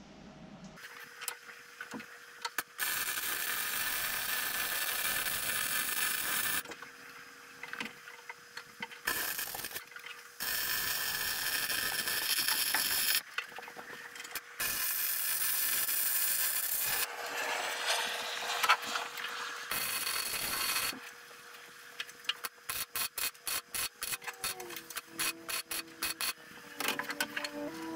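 Metalworking tool noise on a narrowboat's steel engine bed: several stretches of bright hissing noise, each a few seconds long, starting and stopping abruptly, then a run of rapid clicks near the end.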